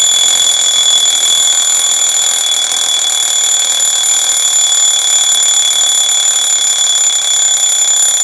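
Alarm clock ringing: a loud, steady, high-pitched ring that goes on without a break, waking a sleeper.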